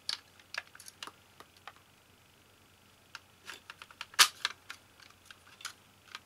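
Light clicks and small knocks of plastic and metal parts of a Mac mini's internal assembly being handled and pressed together, with a louder click about four seconds in.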